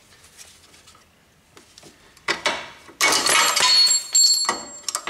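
Parking brake shoes, springs and metal hardware clinking and rattling as the assembly is taken apart. A couple of light clicks come about two seconds in, then about a second and a half of dense metallic clatter with a high ringing.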